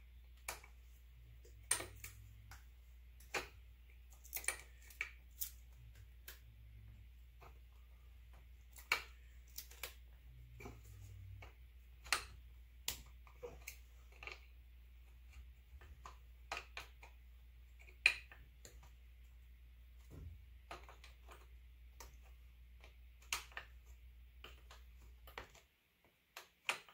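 Irregular sharp metallic clicks and taps of a wrench working a fitting on the engine, single or in short clusters a second or two apart. A low steady hum underneath cuts off near the end.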